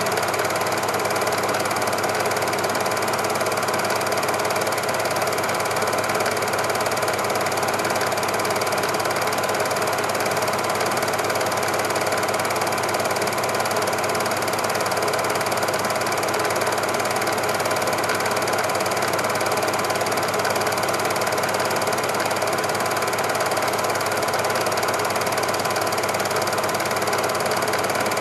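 Cine film projector running, a steady, unchanging mechanical noise.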